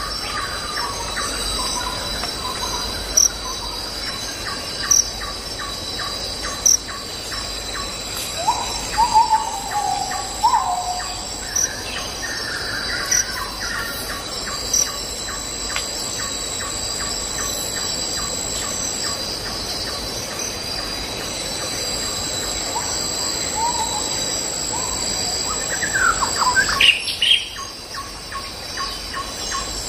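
Recorded nature soundscape of insects and birds: a steady high insect trill with a regular chirping about twice a second, and bird calls that come and go, with a burst of loud rising calls near the end.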